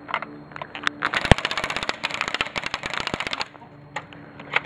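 Airsoft rifle firing: a few scattered shots, then a sustained full-auto burst of rapid sharp clicks lasting about two and a half seconds, with one louder crack near its start.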